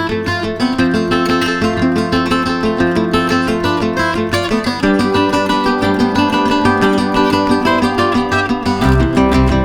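Background music led by strummed and plucked acoustic guitar, with a chord change about five seconds in and a heavier bass coming in near the end.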